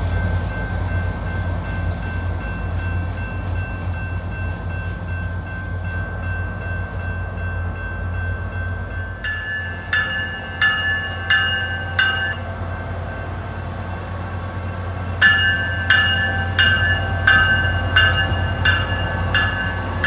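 SunRail commuter train: a diesel engine running steadily under a few steady high tones as the train approaches. About nine seconds in, a bell starts ringing in even strikes about one and a half a second, four strikes, a pause of about three seconds, then a longer run of about eight strikes.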